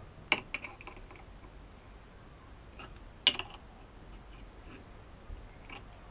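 Adjustable spanner clicking and clinking against the steel lathe cross slide as the cross feed is locked tight: a sharp click about a third of a second in, a few lighter taps just after, another sharp clink a little past three seconds, and a faint tap near the end.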